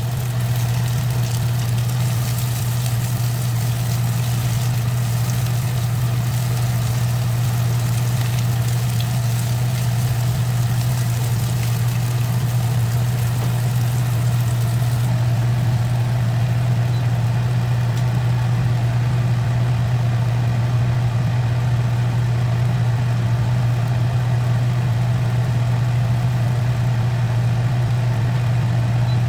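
A steady low motor hum, running unchanged throughout, with an even noise above it.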